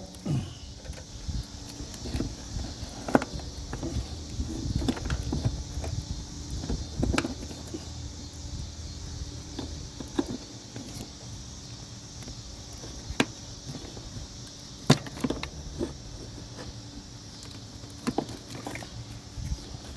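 An old, brittle plastic covering crumbling and snapping as it is pulled apart by hand: scattered sharp cracks and small knocks every few seconds, with handling noise between.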